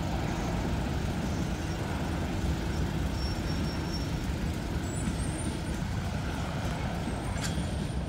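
Freight train of covered hopper cars rolling past, a steady rumble of steel wheels on the rails.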